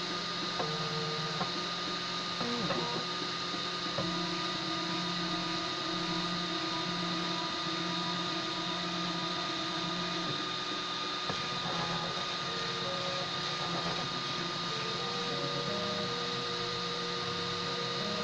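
Homemade DIY 3D printer printing, its stepper motors whining in tones that jump to new pitches every second or so as the print head moves, over a steady hiss.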